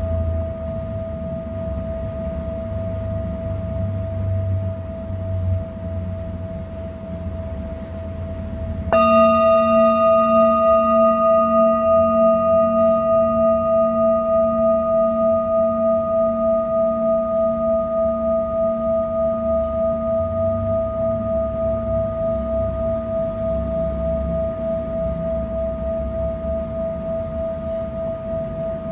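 Singing bowl rubbed around its rim with a mallet: a steady ringing tone over a low rubbing sound. About nine seconds in the bowl is struck, and a brighter ring with higher overtones takes over, fading slowly with a steady wobble.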